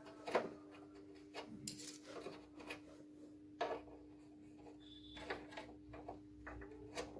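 Plastic parts of a copier paper cassette being handled and pressed into place by hand: scattered light clicks, taps and rubbing, over a steady low hum.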